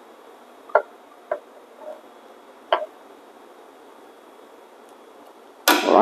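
Steamed milk being poured from a steel pitcher into a porcelain cup: a faint steady hiss with a few light clicks of pitcher or cup. A short, loud burst of noise comes near the end.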